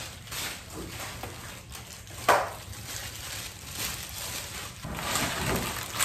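Plastic packaging crinkling and rustling as it is handled, with irregular snaps and one louder sharp crackle a little over two seconds in.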